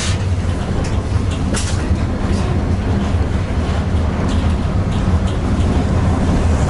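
Tatra T6B5SU tram running along the track: a steady low drone of the running gear and wheels on the rails, with a few short clicks and rattles.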